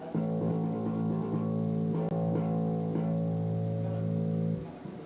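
Electric bass guitar held and ringing, with a few light picks, cut off sharply about four and a half seconds in: the bassist playing to check his headphone mix.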